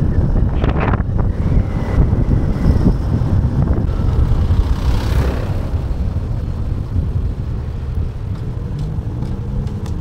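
Riding noise from a Yamaha motorcycle on the move: a steady low rumble of wind on the microphone with the engine underneath, easing as the bike slows near the end.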